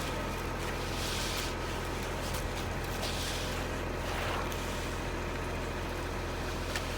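A steady low engine-like drone, with a few brief rushing noises over it.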